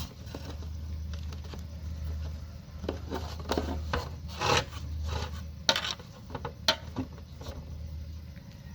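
A series of short scrapes and knocks, as of hard objects being handled and rubbed together, bunched in the middle, over a low steady hum.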